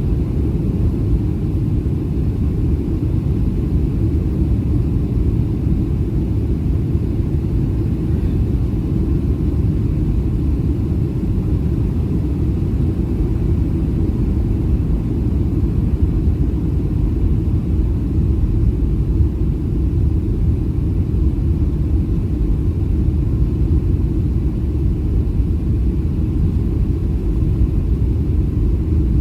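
Steady low rumble of a Boeing 737-700 in flight, heard from inside the passenger cabin: engine and airflow noise, with no touchdown or other distinct events.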